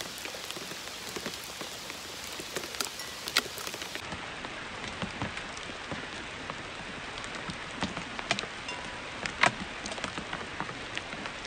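Hail falling steadily: a continuous hiss dotted with many sharp ticks of hailstones striking, a few of them louder than the rest.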